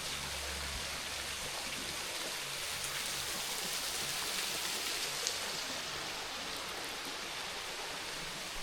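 Creek water pouring over small waterfalls and ledges, a steady, even rush of falling water.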